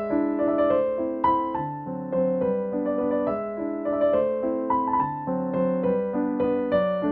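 Background piano music: a gentle, evenly paced melody of single notes over soft chords.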